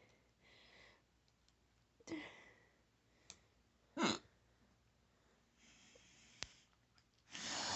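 A person hiccuping: short, sudden hics about two seconds in and again about four seconds in, with soft breathing between. A louder rush of breath comes near the end, and there are a couple of faint clicks.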